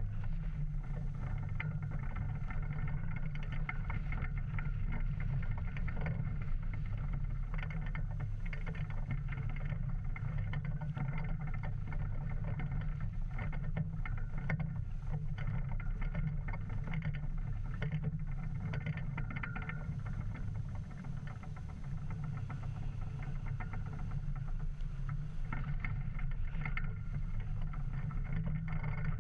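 Wind buffeting the microphone with a steady low rumble, while a polyester flag flaps on its pole with a light, fluttering rustle.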